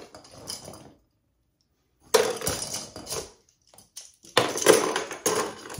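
Toiletry items being handled and sorted by hand: bursts of rustling and clattering, after about a second of dead silence near the start.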